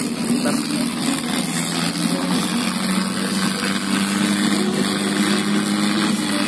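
Boat engine running steadily: a low drone that shifts slightly in pitch, over a constant rushing noise.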